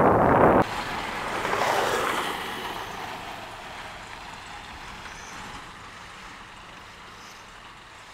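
Wind and road rush from travelling along a forest road: a loud rush cuts off abruptly under a second in, then a softer rushing swells briefly and fades away.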